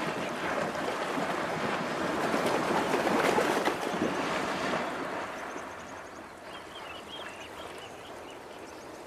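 Heavy splashing and churning of river water as large animals move through it, loud for the first five seconds, then easing to a quieter wash. Faint bird chirps come through near the end.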